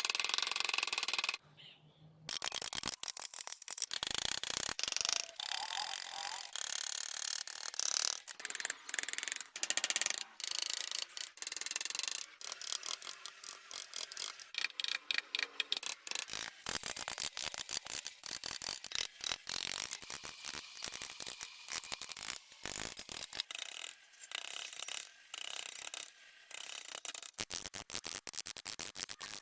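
Wood being scraped and cut with hand tools in many short, rasping strokes, broken up by abrupt cuts and gaps.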